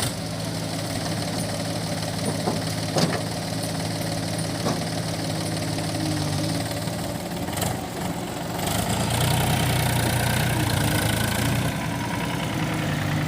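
Diesel engine of a JCB 3DX backhoe loader running steadily, with a few short knocks in the first few seconds. About nine seconds in, the engine gets louder and fuller for roughly three seconds, then settles back.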